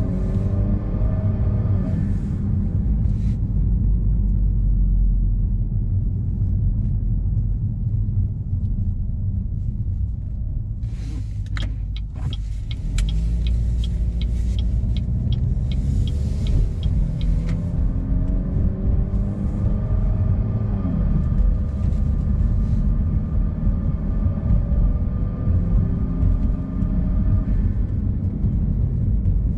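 Exhaust of a 2016 Chevrolet Malibu's 2.0-litre turbocharged four-cylinder through a Borla axle-back with the resonator deleted, under way with engine pitch rising through the gears. Midway it eases to a low rumble with a run of even ticks, then pulls away again with rising pitch.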